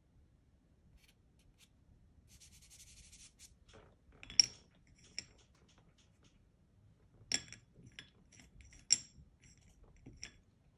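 Soft pastel sticks clinking against a porcelain saucer as they are picked through: about six sharp clinks with a short ring, the loudest about four and nine seconds in. A brief scratchy rub comes just before the first clink.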